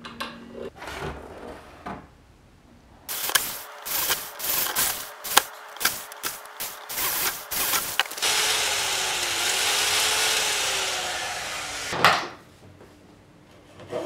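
Hand tool work on an aluminium plate, cutting slots for the sled's pulling attachment: a quick string of sharp metallic knocks and clinks, then about four seconds of steady harsh scraping noise, ending in one hard knock.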